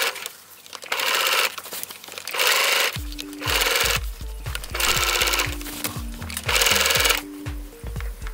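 Electric sewing machine stitching in several short runs of about a second or less, stopping and starting as the fabric is guided by hand. Background music with a bass line plays underneath.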